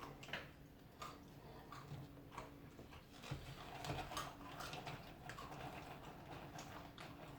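Faint, irregular crunching clicks of someone chewing peanuts.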